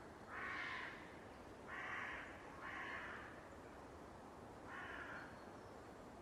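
A crow cawing four times at uneven intervals, each caw harsh and about half a second long, heard faintly over quiet open-air background.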